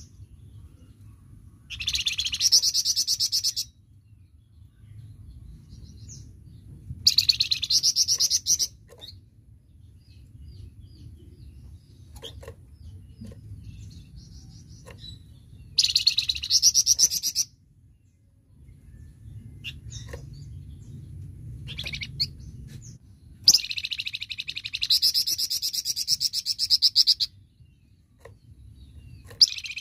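A flamboyan songbird singing 'tembakan', rapid high trilled bursts of one to four seconds. There are about five bursts with short gaps between them, and the longest comes a little after the middle. A steady low hum runs underneath.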